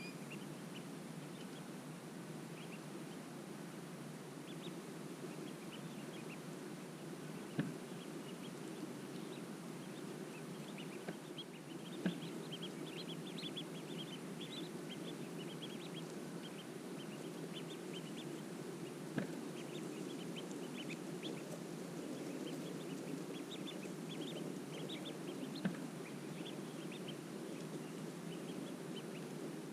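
Ducklings peeping: many short high-pitched peeps that come thicker from about twelve seconds in, over a steady low rumble. Four sharp clicks stand out along the way.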